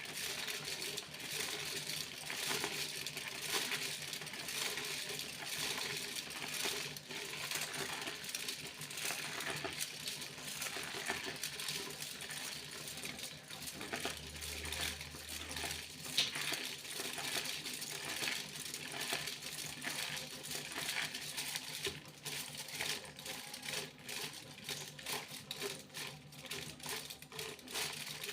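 Foil being crinkled and rustled: a continuous dense crackle of small sharp ticks, turning into more distinct, separate clicks near the end.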